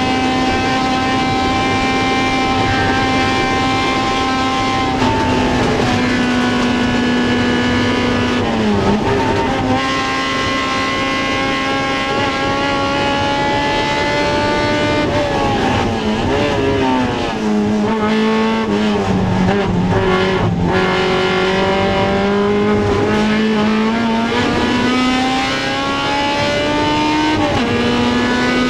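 Honda CRX race car's four-cylinder engine running hard at a steady high pitch. The pitch dips briefly at a gear change about nine seconds in, then falls in steps through the middle as the car slows and downshifts. It climbs steadily again under acceleration, with another quick shift near the end.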